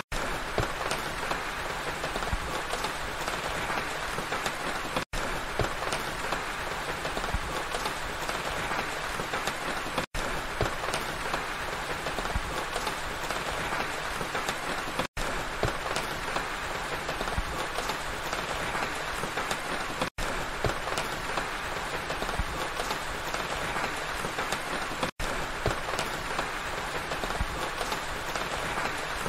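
Steady rain, a dense even hiss of many fine drop hits. The sound cuts out very briefly about every five seconds.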